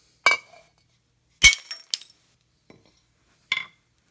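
A hammer striking the side of a glazed ceramic toilet: four or so sharp blows, the loudest about a second and a half in, with the china cracking and shards clinking.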